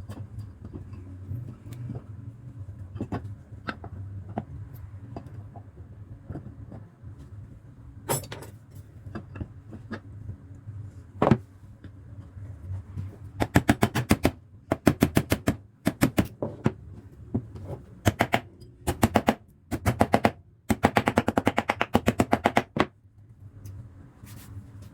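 Scattered sharp taps and knocks during hands-on work on an old electric fan. From about halfway come several bursts of rapid, evenly spaced clicking, each lasting about a second.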